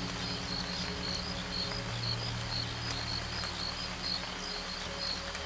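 Background music: sustained low chords that shift about two seconds in, under a regular high chirping about three times a second and a steady hiss.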